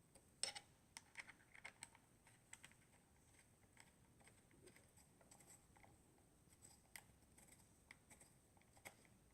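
Faint, irregular small clicks and ticks from an Allen wrench backing a screw out of a Ruger 10/22 Takedown's receiver and from the metal parts being handled. The loudest click comes about half a second in.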